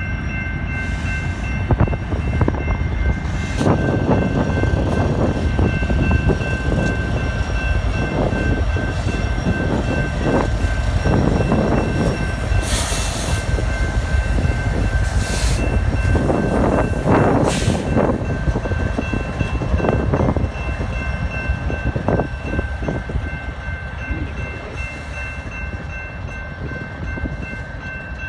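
Freight train rolling past a grade crossing: the last railcars and the rear diesel locomotives of a BNSF pipe train rumble by, with heavy wind noise on the microphone and a steady high ringing tone. The rumble fades over the last several seconds as the locomotives move away.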